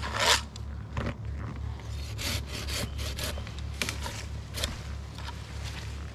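Wood being scraped and rubbed in irregular short strokes, over a steady low hum.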